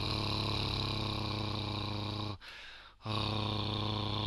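A man sounding a sustained German guttural R, the uvular R made in a relaxed throat, held as one long low steady sound. It breaks off about two and a half seconds in and is taken up again after a short pause.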